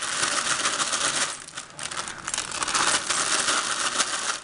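Plastic bag of chocolate chips being shaken out over a glass bowl: the bag rustles and crackles while chips drop and click into the bowl. There is a short lull about a second and a half in.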